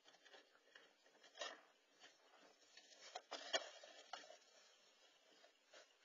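Near silence broken by faint scattered clicks and short rustles, the sharpest about three and a half seconds in, as a raccoon moves in against the nest and the camera.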